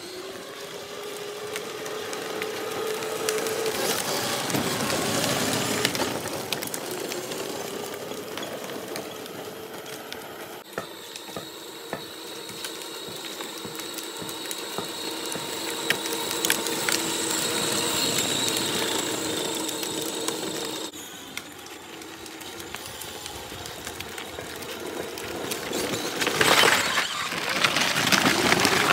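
Electric ride-on toy buggy driving: its small motors and plastic gearboxes whine steadily as the plastic wheels roll on asphalt. Near the end the wheels crunch loudly over gravel.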